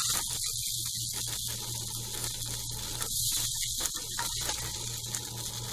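Hot oiled nonstick pan hissing steadily just off the heat, while a spatula scrapes the last onion and tomato pieces out of it with light scraping clicks. A low steady hum runs underneath.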